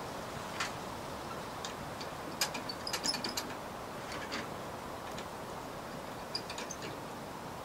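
Irregular light clicks and ticks, a few at a time, over a steady hiss.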